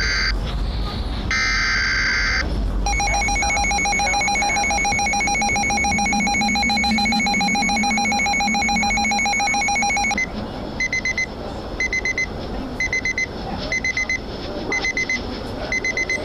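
Emergency alert broadcast tones: two short bursts of shrill data tone, then a rapidly pulsing two-tone attention signal for about seven seconds, then short high beeps about once a second.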